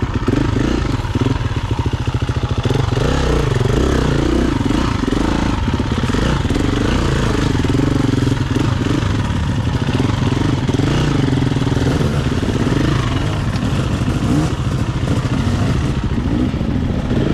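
KTM EXC-F 350 single-cylinder four-stroke dirt bike engine running through an FMF exhaust tip while riding, the revs rising and falling continually.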